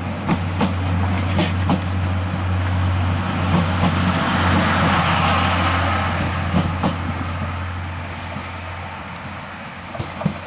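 Salon Car Naniwa passenger coaches rolling slowly past as the train departs: a steady low hum and rumble, with wheels clicking over rail joints. It swells as the coaches go by, then fades as the last car pulls away.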